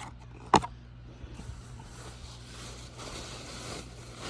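Trading card packaging being handled: one sharp snap about half a second in, then soft rustling and scraping, over a steady low hum.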